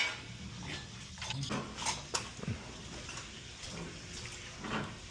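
Scattered light clinks and knocks of metal pipe fittings being handled, a few sharp ones about two seconds in.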